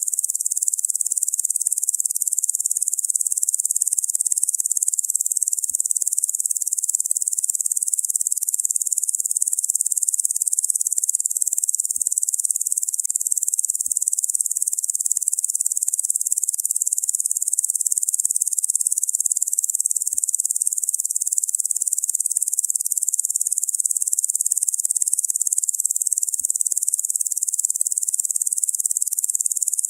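Locusts droning together in a steady, high-pitched hiss that runs on without a break or any change in level.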